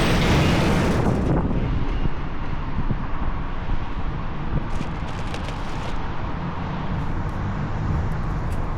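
AAON rooftop unit's condenser fan running with a low, rattling racket from a broken plastic rain shield (slinger) dropped onto the motor housing, a fault that sounds like worn fan motor bearings. A louder rush of noise fills the first second and a half.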